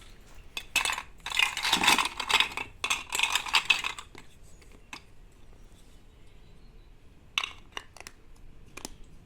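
Small hard plastic toys clattering and clicking as they are handled: a dense run of rattling for the first few seconds, then a few single clicks near the end.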